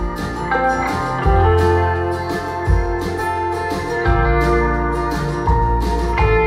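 Acoustic folk music with plucked guitar over held bass notes that change every second or so, played through Audiolab Symbol two-way tower loudspeakers and picked up by a microphone in the room.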